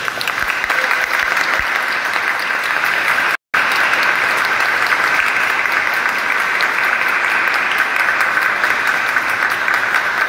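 Congregation applauding: dense clapping that swells in the first second, then holds steady, broken by a split-second dropout in the sound about three seconds in.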